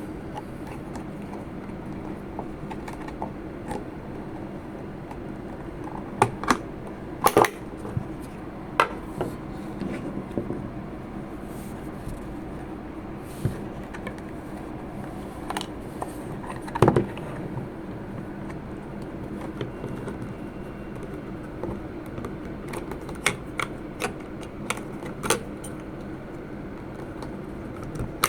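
Scattered clicks and knocks of a battery and the plastic case of an RD7200 cable locator being handled during a battery change, over a steady low hum. The loudest knocks come about six to seven seconds in and again about seventeen seconds in, with a quick run of clicks near the end.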